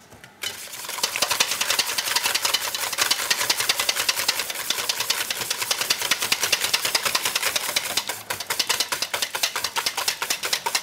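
Wire balloon whisk beating eggs in a stainless steel bowl, its wires clicking rapidly and rhythmically against the metal. It starts about half a second in and breaks off briefly near the end before going on.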